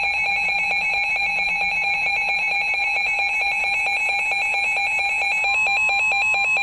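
Emergency alert alarm announcing a severe thunderstorm warning: a loud, rapidly pulsing electronic tone, joined by a second steady tone about five and a half seconds in.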